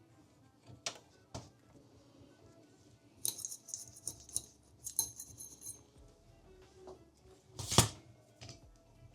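Small metal parts and tools clinking and clicking as a desktop PC is worked on, with a burst of ringing metallic clinks in the middle and one sharp knock near the end. Faint background music.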